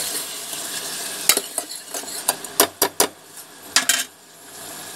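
Spoon stirring onion-tomato masala frying in a steel pressure-cooker pot, with a soft sizzle and a run of sharp clinks of the spoon against the pot in the middle; the sizzle is quieter near the end.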